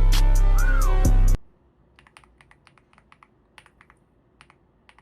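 Music with a beat cuts off abruptly about a second and a half in. Then the keys of a Gravastar mechanical keyboard are typed on: faint, quick, uneven clicks, some in short runs.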